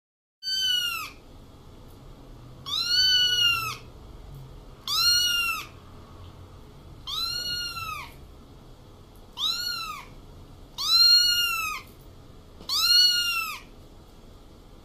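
Young ginger kitten meowing: seven high-pitched meows, each rising and then falling in pitch, about one every two seconds.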